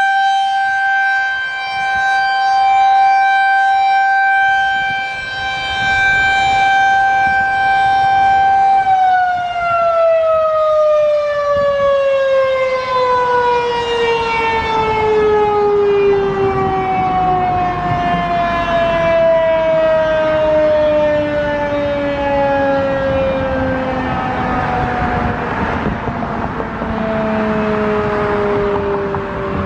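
Federal Signal 2001-SRN rotating electromechanical siren sounding its steady alert tone. About nine seconds in the pitch begins a long, slow fall as the siren winds down.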